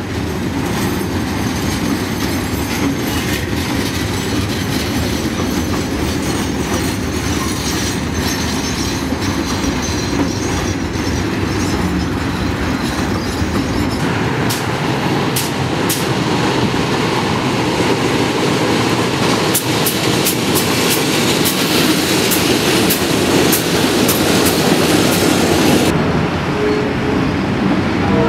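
Container freight wagons rolling past: a steady rumble of steel wheels on rail, with sharp clicks as the wheels cross rail joints from about halfway through.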